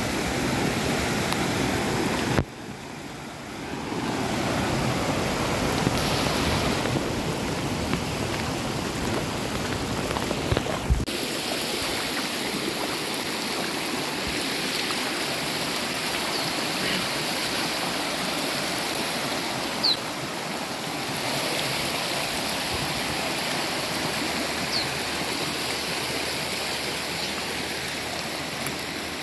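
Muddy floodwater rushing over the ground in a flash-flooded seasonal creek, a continuous rushing of water, with rain falling. The level shifts abruptly about two and a half seconds in and again about eleven seconds in.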